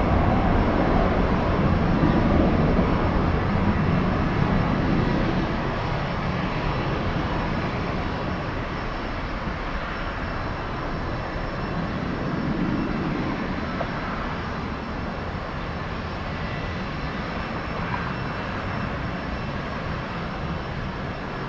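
Jet engines of a departing Boeing 757-300: a broad, steady rumble with slow swells that fades gradually as the aircraft climbs away.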